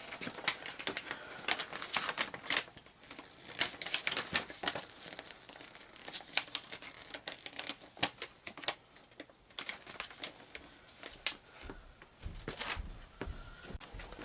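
A paper instruction sheet crinkling as it is handled, with a dense, irregular run of crackles that is busiest in the first couple of seconds.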